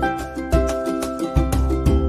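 Upbeat background music with plucked strings and a steady beat.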